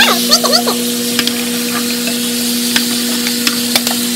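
Sliced mushrooms and asparagus sizzling in frying pans, with a plastic spatula scraping and ticking against the pan as the mushrooms are stirred. A steady low hum runs underneath.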